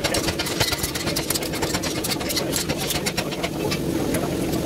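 A forge running steadily, with a constant low hum and a rapid, irregular crackle.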